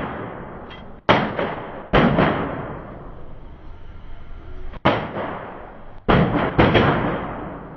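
Handgun shots from neighbouring lanes of an indoor shooting range, about six or seven at uneven spacing, some in quick pairs, each followed by a long echoing tail off the range walls.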